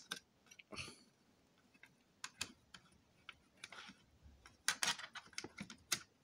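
Hands working wires and wire nuts inside a plastic exit-sign housing: scattered light clicks and taps of plastic and wire being handled, in a cluster near the end.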